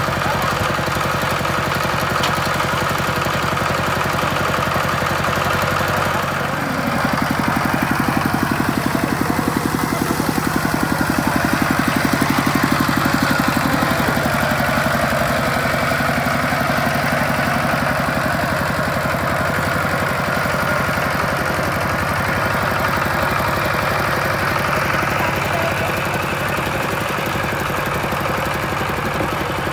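Two-wheel walking tractor's single-cylinder diesel engine chugging steadily under load as it hauls a loaded trailer through shallow floodwater. It gets louder from about seven seconds in and eases back after several seconds.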